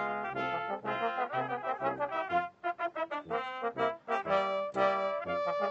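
Brass band playing a tune of quick, short notes, with trombones and trumpets to the fore.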